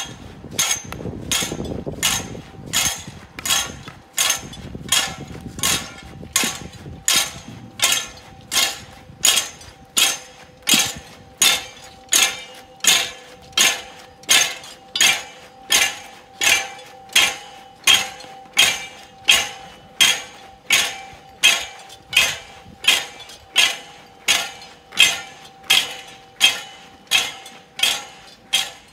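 Sharp metallic strikes at a steady walking pace, about three every two seconds, each leaving a faint ringing tone.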